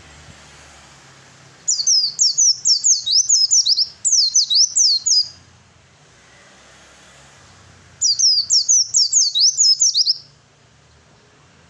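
Male pleci (white-eye) singing a fast chattering song of quick, high, sharply falling whistled notes, in two loud bouts of a few seconds each with short pauses between.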